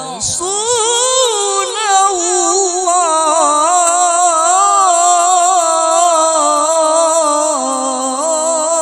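A male qari reciting the Quran in the melodic mujawwad style. He sustains one long melismatic phrase with rapid ornamental turns of pitch, after a quick breath at the start.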